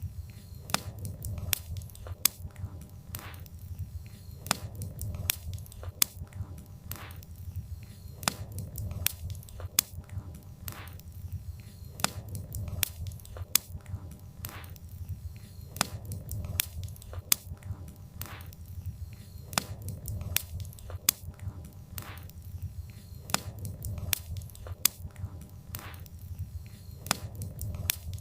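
Wood fire crackling, with irregular sharp pops and snaps over a steady low rumble of the burning logs.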